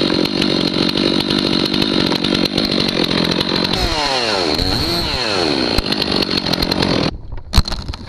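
Top-handle chainsaw running flat out as it cuts into the maple trunk. Its pitch drops and rises around the middle, and it cuts off suddenly about seven seconds in. A single sharp knock follows.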